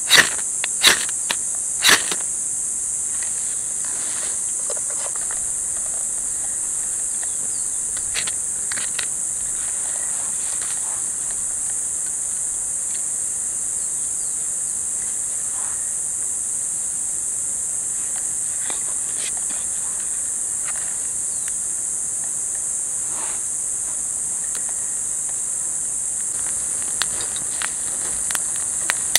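Steady high-pitched insect chorus throughout. A few sharp scraping strokes sound in the first two seconds, and faint scattered snaps and crackles come near the end as a small campfire catches.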